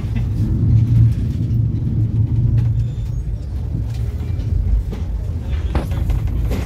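Steady low rumble of a moving train, heard from inside the carriage.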